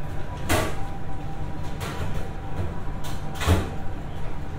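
Café ambience: a steady low hum of the room with three short, sharp clatters, about half a second in, near two seconds and, loudest, about three and a half seconds in.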